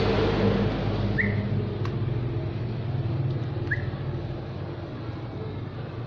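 A motor vehicle's engine hums steadily and slowly fades away. Two short high chirps come about a second in and again a little under four seconds in.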